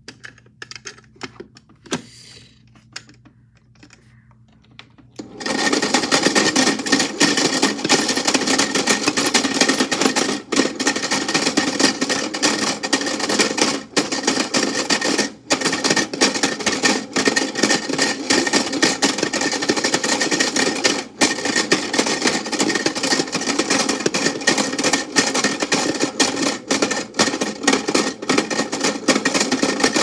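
A few light clicks as the door of a toy Tide washing machine is shut, then about five seconds in its small battery motor starts and runs with a loud, steady rattling buzz.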